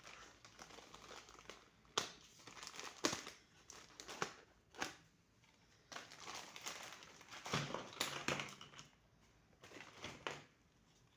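Packaging crinkling and rustling in irregular bursts as it is handled, with a few sharp clicks, typical of opening a toy set's wrapping.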